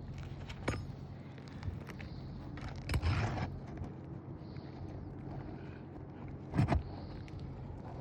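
Tools working on a roof shingle during a shingle repair: a sharp click just before a second in, a short scraping burst about three seconds in, and two sharp knocks near the end, over a steady low hum.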